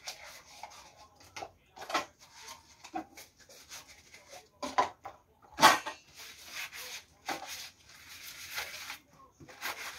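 Dishes being washed by hand: a sponge scrubbing, and dishes and pots knocking and clinking against each other in the wash tub, with half a dozen sharp clinks, the loudest a little past the middle.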